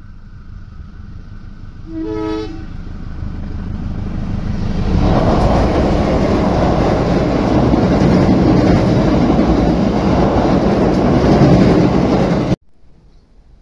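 KAI diesel locomotive's horn sounds one short blast about two seconds in, then the locomotive and its passenger coaches pass close by, the rumble and wheel clatter growing loud and holding steady until it cuts off suddenly near the end.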